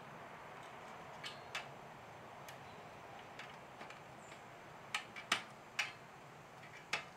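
Sharp, scattered clicks and snaps from thin sheet metal being bent and worked with a hand tool: a couple early on, then a cluster of louder ones about five to six seconds in, and one more near the end.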